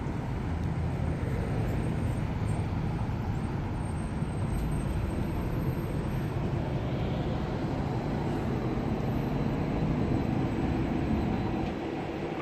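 Electric trolley bus pulling up slowly at close range over a steady street-traffic rumble. The rumble eases off near the end.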